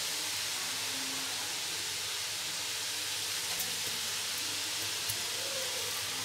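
Soybean mince filling sizzling steadily in hot oil in a kadhai, freshly splashed with soy sauce.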